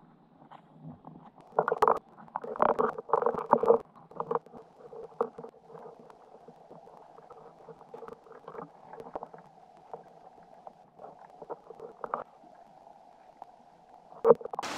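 Muffled underwater sound of the river, heard through a camera's waterproof housing: a low steady murmur of water with irregular clicks and knocks, busiest in the first few seconds.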